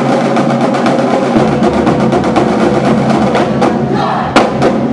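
Marching drumline of snare drums, tenor drums and bass drums playing a fast drum cadence, full of quick rolls. A sharp, loud accented hit comes about four seconds in.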